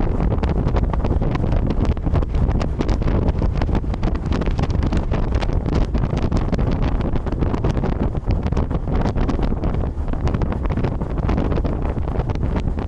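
Wind buffeting the microphone of a moving boat: a steady, loud low rumble with constant small crackles.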